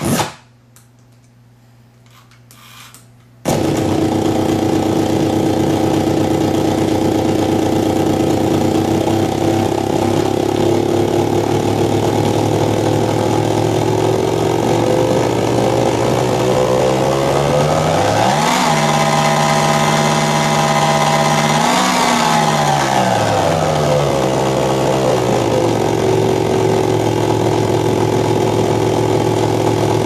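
Circuit-bent Furby played through a voice-changer circuit: a loud, buzzing electronic drone with many overtones that starts after a short quiet gap near the beginning. About halfway through its pitch slides up, holds for a few seconds, then slides back down.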